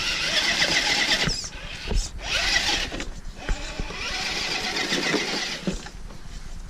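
Axial SCX10 II RC crawler's electric motor and gear drivetrain whining in three bursts as the throttle is worked, pausing briefly between them.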